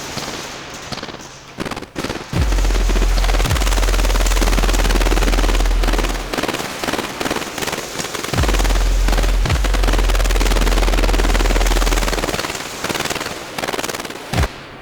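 Fireworks crackling and popping in a rapid, dense run of bursts inside a closed plexiglass box. A deep sustained bass note sounds under them twice, in long stretches, first about two and a half seconds in and again about eight seconds in.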